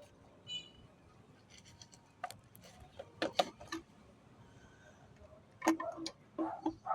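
Scattered light clicks and knocks of objects being handled, with a brief high ringing tone about half a second in and a quick cluster of knocks near the end.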